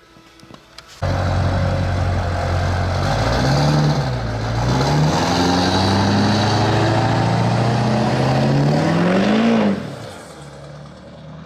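Chipped 2003 GMC Duramax 6.6 L turbo-diesel V8 accelerating hard through a 5-inch MagnaFlow exhaust, blowing black smoke under full load. The engine note climbs, falls back once at a gear change, then climbs steadily before cutting back sharply to a low idle near the end.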